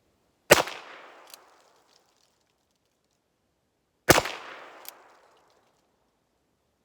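Two shots from a Ruger Wrangler .22 LR single-action revolver, about three and a half seconds apart, each trailing off in an echo. A short sharp tick follows under a second after each shot.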